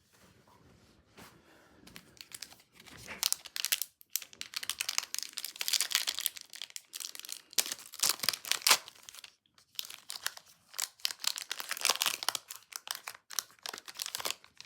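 Plastic wrapper of a Fleer Ultra Matriarchs of Marvel trading card pack being torn open and crinkled by hand. The rapid crackling rustle builds from about two seconds in and comes in several loud spells.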